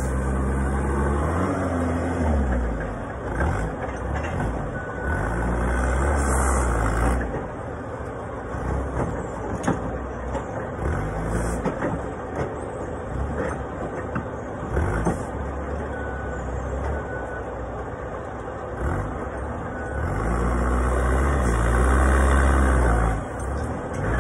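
Propane-powered Toyota forklift running, its engine revving up and down near the start and again near the end as it lifts and moves a stack of plastic bulk bins. In between come knocks and clatter of the forks and bins, and a few short beeps.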